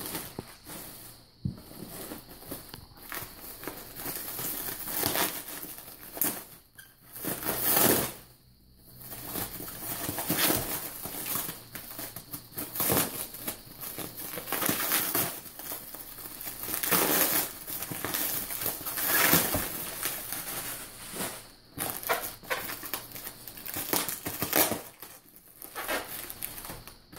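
Packaging crinkling and rustling in irregular bursts as items are handled and lifted out of a box, with a few brief pauses.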